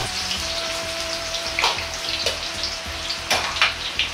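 Water-boiled bamboo shoots deep-frying in hot oil in a wok: a steady sizzle with scattered sharp crackles.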